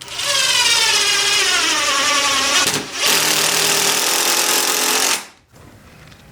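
Power tool run in two bursts, its pitch sinking under load during the first and holding steady in the second, then cutting off abruptly.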